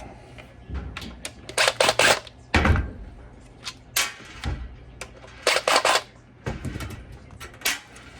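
Clusters of sharp clicks and knocks as a front-load washer's plastic drain pump assembly and its parts are handled. There are about half a dozen separate bursts, with a faint steady low hum underneath.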